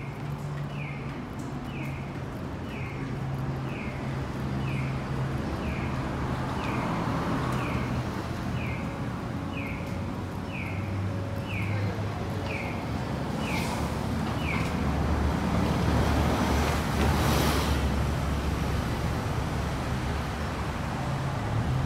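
Japanese pedestrian crossing signal sounding a short, falling electronic chirp at an even pace, a bit more than once a second, over the hum of idling traffic. The chirping stops abruptly about two-thirds of the way through. After that, traffic noise swells as vehicles pull past.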